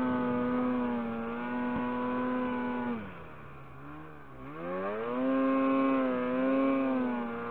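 Polaris SKS 146 snowmobile's two-stroke engine running under throttle through deep powder. The engine note eases off sharply about three seconds in, then rises back up and holds steady again.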